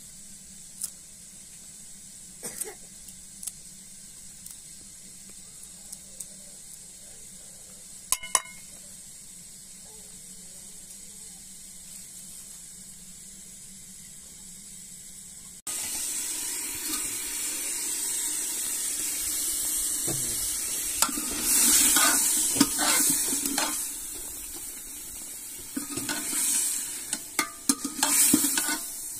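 A few light clicks of a knife as fresh coriander is cut over a metal plate. Then, after a sudden cut about halfway, loud frying sizzle in an aluminium pot over a wood fire, with a metal spoon scraping and clinking against the pot as it is stirred, the clinks growing busier near the end.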